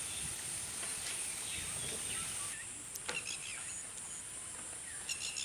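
Rural outdoor ambience: a steady high-pitched insect drone with scattered short bird chirps, including quick runs of chirps about three seconds in and near the end.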